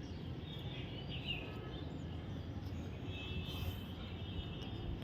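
Steady low outdoor rumble with a few faint, short bird chirps, one at about a second in and a short run around three seconds in.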